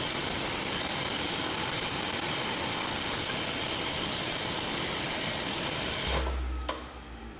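Sandpaper pressed against a mahogany workpiece spinning on a wood lathe makes a steady, dense sanding hiss. The hiss stops abruptly about six seconds in as the paper is lifted away, followed by a short low thud and a click.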